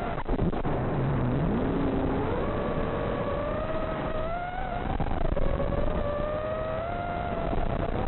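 FPV quadcopter's brushless motors whining. The pitch drops low about a second in, rises as the throttle comes up, then holds with small surges and dips as the quad flies.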